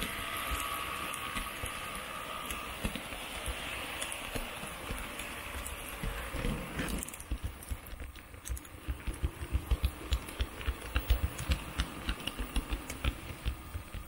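H0 model train running on the layout's track: a steady whirring hiss with a faint whine for the first half, giving way about halfway through to a quick, uneven run of clicks and clacks.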